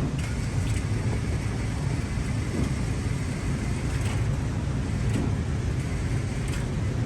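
Steady low rumble of indoor shooting-range background noise, with a handful of faint sharp clicks or reports at uneven intervals.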